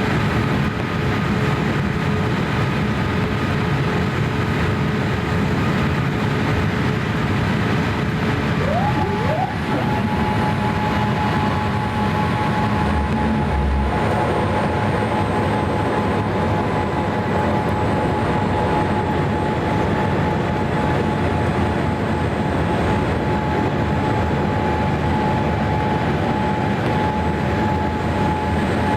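Boeing 787-8 with Rolls-Royce Trent 1000 engines, heard from inside the cabin: a steady rush of engine and airflow noise. A steady whine rises quickly to a higher pitch about nine seconds in and then holds there.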